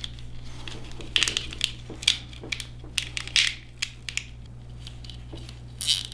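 Plastic crinkling and rustling as wires are worked by hand into a plastic cable-organizing tube, in irregular short crackly bursts.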